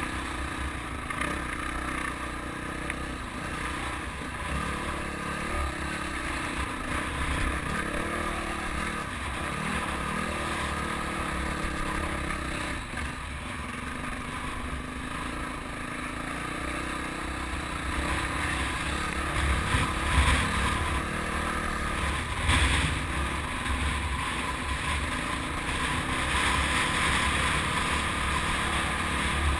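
Dirt bike engine running at varying throttle while riding a rough dirt trail, with wind on the helmet-mounted camera's microphone. A couple of louder knocks come about two-thirds of the way through.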